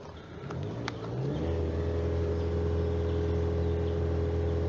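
Skoda Octavia A7's 1.6-litre engine heard at the exhaust, revved up over about a second and then held at a steady raised speed. It is a check of whether the engine holds its revs.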